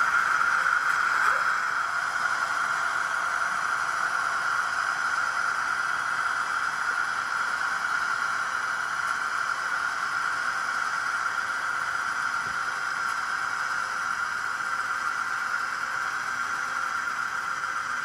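HO scale SDS Models NR Class model locomotive running on the layout track, giving a steady whirring hiss.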